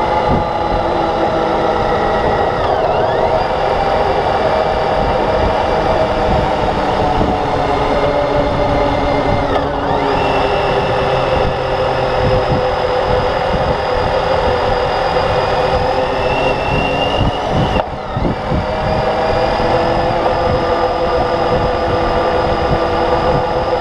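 Motorcycle engine running steadily under way, over a constant rush of wind noise. The engine note breaks and changes pitch briefly three times, about 3, 10 and 18 seconds in.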